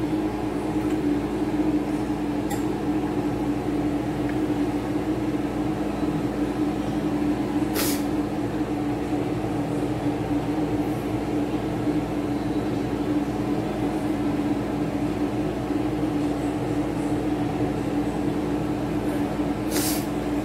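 Steady mechanical hum with a low droning tone, unchanging throughout, typical of a fan or kitchen appliance running. A brief click about eight seconds in and another near the end.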